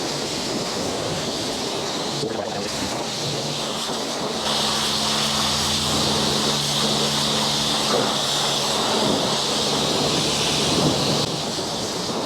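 Pressure washer (jet wash) spraying water onto an off-road buggy: a steady, loud hiss that grows stronger from about four seconds in and eases back about eleven seconds in, with a low steady hum underneath through the middle.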